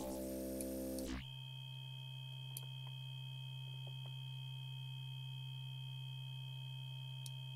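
Software FM synthesizer holding a steady note: for about a second a bright tone with many overtones, then it changes suddenly to a plain low hum-like tone with faint high whistling tones above it.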